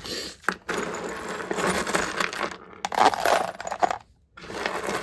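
Loose metal screws clattering and rattling as they are poured or scooped back into their container, in three spells with short pauses between.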